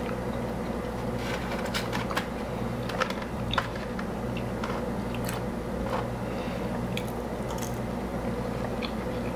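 A person chewing and biting into crisp fried fast food close to the microphone: scattered sharp crunches and clicks.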